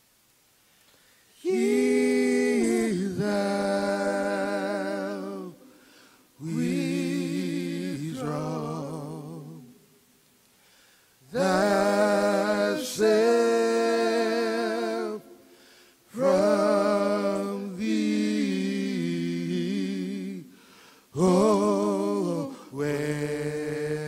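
Male vocal group singing a slow hymn a cappella in harmony, in five long held phrases with short breath pauses between them; the voices waver with vibrato.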